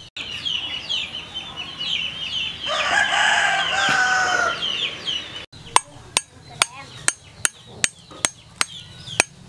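A rooster crows over a rapid run of high chirps. Then, about halfway through, a knife starts tapping the shell of an ostrich egg to crack it: a steady series of sharp knocks, about two and a half a second.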